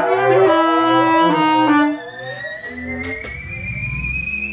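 Improvised music for bass clarinet, theremin and laptop electronics. A dense layer of gliding pitched tones over a low repeating pulse cuts off about two seconds in. What remains is a single high tone sliding slowly upward over a low hum.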